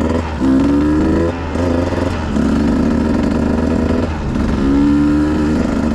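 Husqvarna TE150 two-stroke dirt bike engine accelerating, the revs climbing and breaking off several times as it shifts up through the gears, then holding steady, over a steady low rumble of wind on the microphone.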